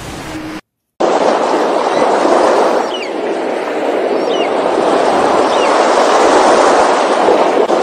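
The sound cuts out completely for a moment about half a second in. A loud, steady rushing noise then follows, with three short high chirps about a second and a half apart.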